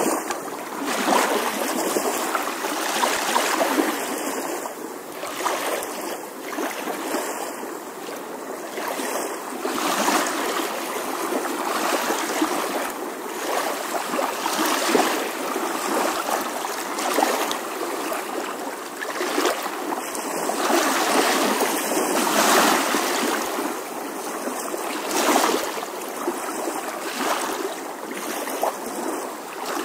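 Continuous rushing noise like running water, swelling and easing irregularly.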